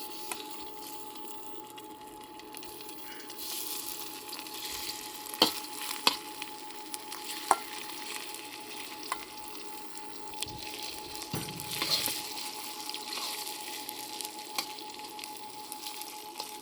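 Marinated beef slices sizzling in hot oil in a pan, a steady frying hiss, with the stirring utensil clicking against the pan now and then.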